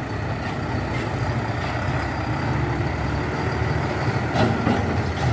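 Heavy vehicle's diesel engine running low and steady, with a short rattle about four seconds in.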